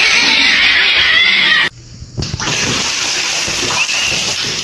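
Water rushing and splashing, a steady loud rush that cuts out sharply for about half a second and then resumes.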